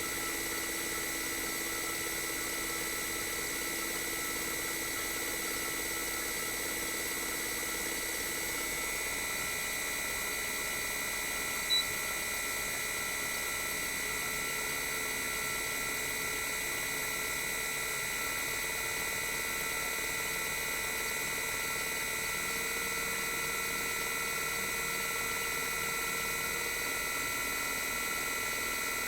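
Toshiba RAS-285LADR (1998) outdoor unit's twin rotary inverter compressor running, heard raw, with a steady electronic inverter whine made of several high tones. The tones shift about 9 seconds in and again a little after 22 seconds, and there is one short click about 12 seconds in.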